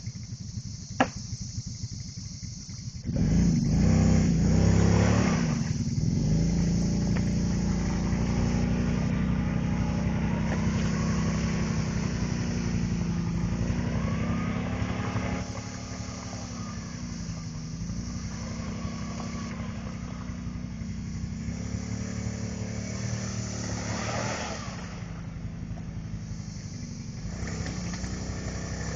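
Kawasaki Brute Force 650 ATV's V-twin engine idling, then revving hard about three seconds in and held at high revs, its pitch rising and falling as the stuck quad's wheels spin in deep mud.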